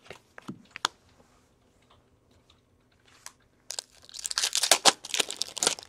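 Trading cards being handled: a few light clicks near the start, then about two seconds of dense rustling and crinkling as the cards slide against one another in the second half.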